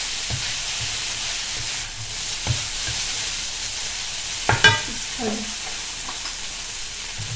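Rice vermicelli noodles sizzling in a hot wok as they are stirred and folded with a spatula, with a steady hiss and a few short knocks of the spatula against the wok, the loudest about four and a half seconds in.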